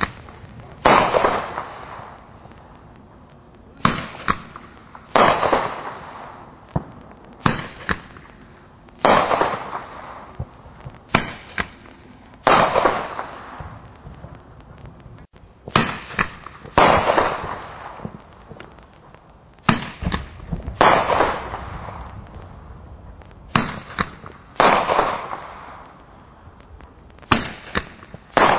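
Five-ball roman candle (Break of Dawn P4015) firing shot after shot: each ball leaves the tube with a sharp pop, and about a second later comes a louder burst that trails away over roughly a second. About seven launch-and-burst pairs come at intervals of around four seconds.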